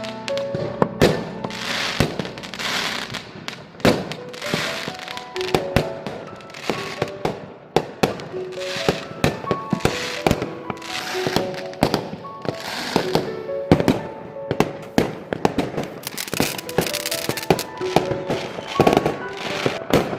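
Fireworks going off in quick succession, sharp bangs and crackles with hissing bursts in between, over music with a clear melody.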